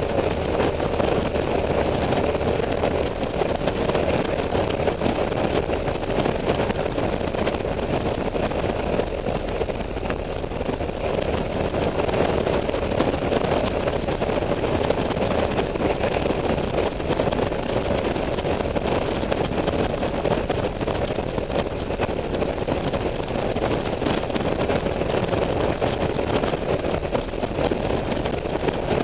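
Honda Silver Wing scooter running at a steady cruising speed, its engine drone holding an even pitch under a constant rush of wind noise.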